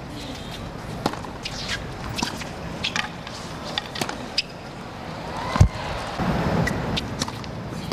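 Tennis ball being hit by rackets and bouncing on a hard court, with short shoe squeaks over a low crowd murmur. One sharp hit about five and a half seconds in is the loudest sound.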